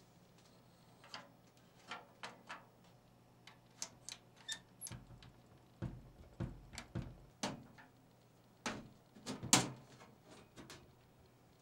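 Hands handling an old beige plastic-and-sheet-steel PC tower case, making a string of irregular clicks, taps and knocks on the front bezel and buttons. Some dull thuds come in the middle, and the loudest clack about nine and a half seconds in comes as the side panel is gripped to come off.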